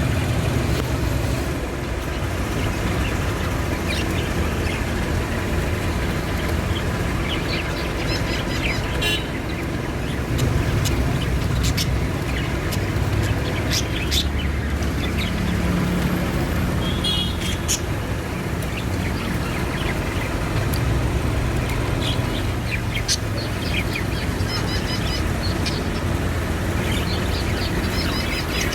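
Baby budgerigars chirping in short scattered calls, over a steady low rumble.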